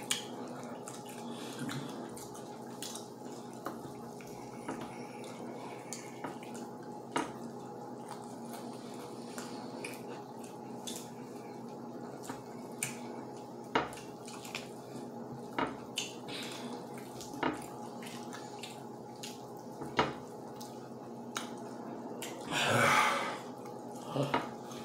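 Eating sounds from people tearing into fried chicken with their hands: scattered wet clicks and lip smacks, with occasional taps on the plates, over a steady background hum. Near the end comes one longer, louder breathy sound.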